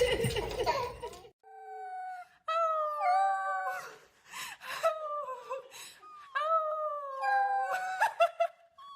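A dog howling and whining in a series of long, wavering notes that bend up and down in pitch, starting just over a second in after a brief burst of laughter and commotion.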